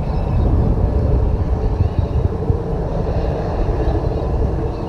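Twin Pratt & Whitney PT6A-60A turboprop engines of a Beechcraft King Air 350ER running on the ground with a steady low rumble and a faint hum.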